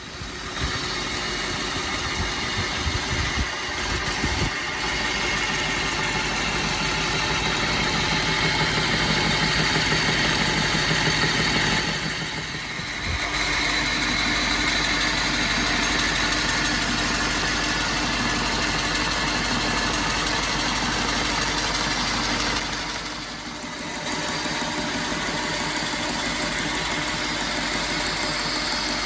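Homemade belt grinder running, driven by a repaired old electric motor: a steady hum with the whirr of the abrasive belt. The sound dips briefly twice.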